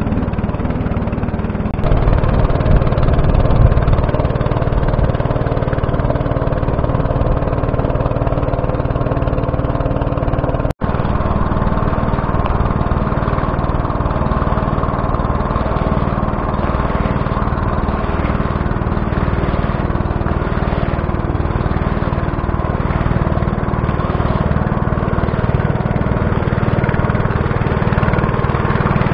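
Small boat's outboard motor running steadily under way, with a short break about eleven seconds in.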